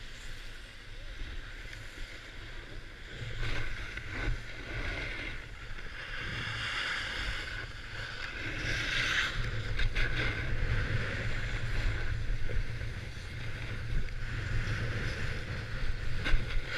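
Snowboard edge scraping and hissing over hard, icy groomed snow while riding downhill, the hiss swelling several times, with wind rumbling on the microphone.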